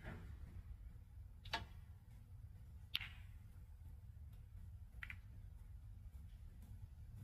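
Snooker balls clicking during a shot: four sharp clicks, the cue striking the cue ball and then balls striking each other, with the two loudest about a second and a half and three seconds in. A low steady hum runs underneath.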